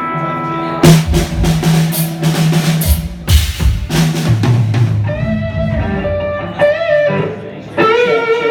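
Live rock band playing amplified at a soundcheck: a held electric guitar chord, then about three seconds of drum kit hits over low bass notes, then a guitar line with bending notes.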